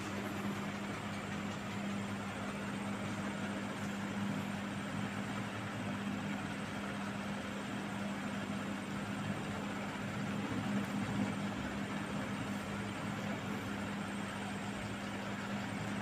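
Panasonic F-560Z2 56-inch industrial ceiling fan running at full speed: a steady rush of air from the spinning blades over a steady low motor hum.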